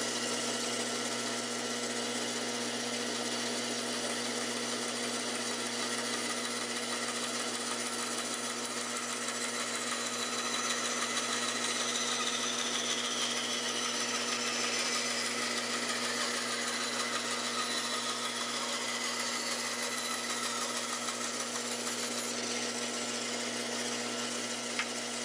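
Bandsaw running steadily, its motor humming while the blade cuts through a turned wooden blank to split it in two.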